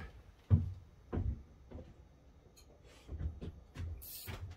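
Scattered knocks and light clatter of hand tools being handled and set down, irregularly spaced, with one sharper knock about half a second in and a short hiss near the end.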